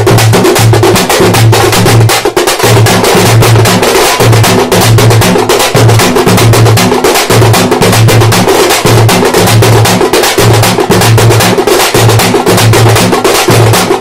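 An ensemble of thappu frame drums beaten with sticks, playing a fast, dense, driving rhythm, with a low booming stroke repeating a little more than once a second.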